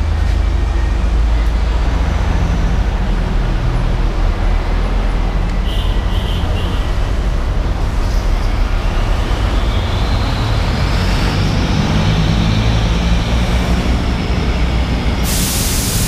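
Steady vehicle engine and traffic rumble, with an engine rising in pitch for a few seconds about halfway through. A sharp burst of air hiss comes near the end.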